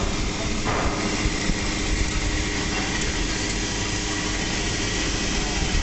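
Steady running noise of industrial machinery with a constant hum, unchanging throughout.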